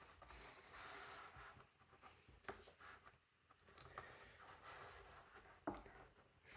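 Faint scraping and rubbing of a plastic tucking tool pushing fabric under the rolled edge of a lampshade ring, with a few light clicks.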